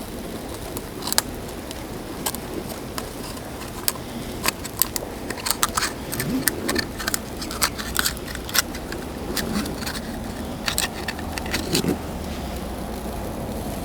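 Irregular sharp clicks and clacks of hard objects knocking together, coming thick and fast through the middle, over a steady background hiss.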